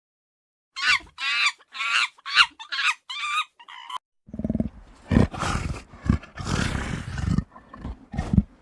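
About six short, high, wavering animal calls in quick succession, then, from about four seconds in, a large animal's deep, rough roars and growls in several bouts, louder than the calls.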